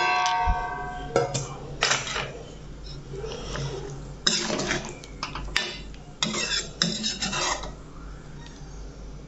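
A metal spoon stirring mushrooms in thick gravy in a metal pan. There is a ringing clink right at the start, then several bouts of the spoon scraping and clattering against the pan.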